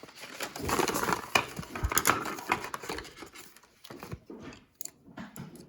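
Handling noise from a set of small steel picks being handled with their packaging: irregular clicks and rustling, busier in the first half and thinning out toward the end.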